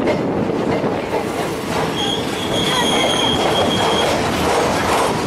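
Passenger express train rolling into a station, heard from aboard: a steady rumble of wheels on rail. About two seconds in, a high, steady squeal sets in for about two seconds, typical of a train slowing to stop.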